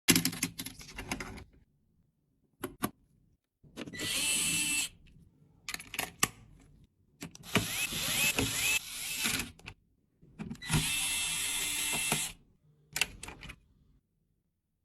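A small electric screwdriver runs in three short bursts of about a second each, driving screws into a PC build. Sharp clicks and knocks of parts being handled come between the bursts.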